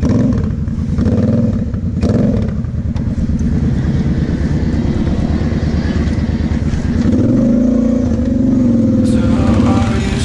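Kawasaki KFX 700 quad's V-twin engine running hard over sandy off-road ground, the throttle opening and closing, with revs climbing about seven seconds in.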